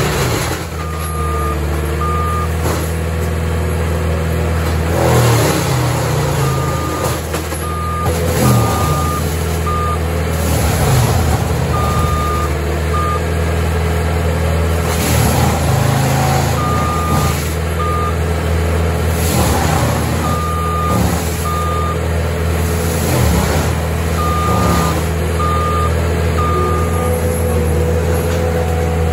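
Caterpillar compact track loader with a forestry mulcher, its diesel engine running steadily as it manoeuvres. Its reverse alarm beeps in about six short runs of repeated beeps whenever it backs up.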